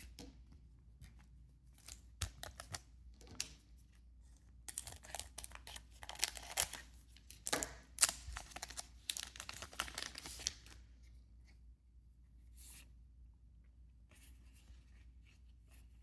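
A foil booster-pack wrapper being torn open and crinkled, with a run of rustling and crackling about five seconds in that lasts roughly six seconds; softer handling rustles come before and after it.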